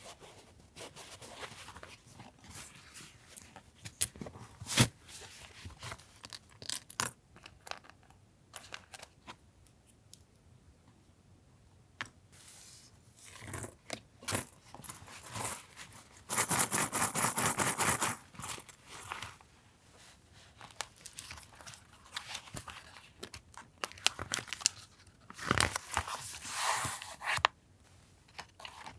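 Paper collage materials being handled at a desk: rustling, light taps and scrapes of paper on paper, with a dense tearing rasp about 1.5 s long past the middle and another rough rustle near the end.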